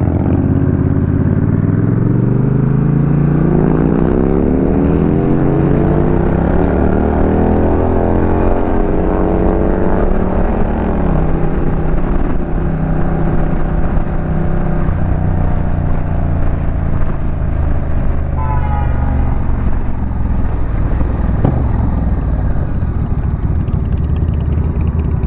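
Honda Rebel 1100 DCT's parallel-twin engine under way, accelerating. The pitch climbs, drops at a gear change about five seconds in, and climbs again. It falls back after about eleven seconds and then holds a steady cruise.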